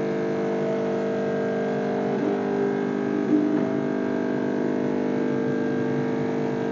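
Beko espresso machine's 15-bar pump running steadily while brewing, a constant buzzing hum.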